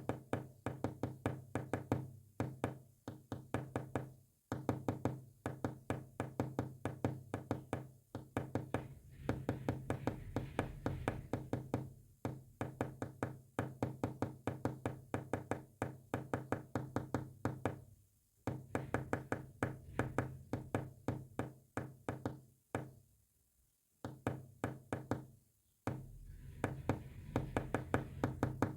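Morse code tapped out as fast trains of sharp, slightly ringing knocks, about six a second, in groups separated by short pauses.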